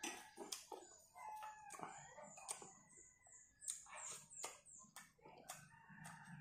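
Quiet eating sounds: a metal spoon clicking against plates and soft chewing. In the background, a bird gives a quick run of high, falling chirps in the middle.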